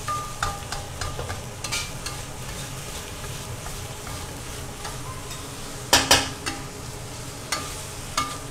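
Chicken pieces in spice paste sizzling in a stainless steel wok while a metal spatula stirs and scrapes them, with light clinks of the spatula against the wok and two loud clanks close together about six seconds in.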